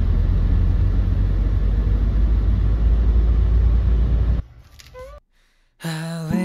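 Steady low rumble of a passenger van's engine and road noise, heard from inside the cabin, cutting off suddenly after about four seconds. Background music with singing starts near the end.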